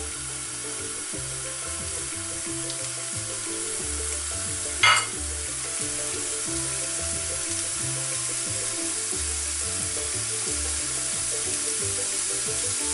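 Crumbled pork sausage meat sizzling steadily in a frying pan on a gas hob, with one short sharp click about five seconds in.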